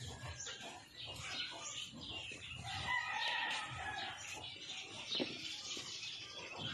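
Rooster crowing, one long crow about three seconds in, with a few light knocks of bamboo slats being handled.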